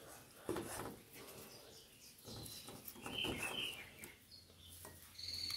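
Faint bird chirps, with a few soft knocks of a cleaver blade on a wooden cutting board.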